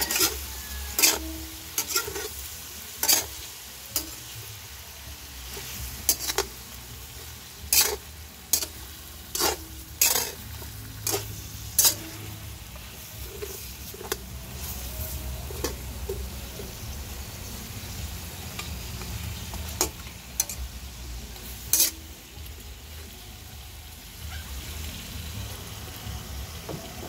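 Pork trotters sizzling in a steel wok while a metal spatula stirs and turns them, scraping and clanking against the pan. The clanks come thick and fast for the first dozen seconds, then only twice more, while the sizzle runs on steadily.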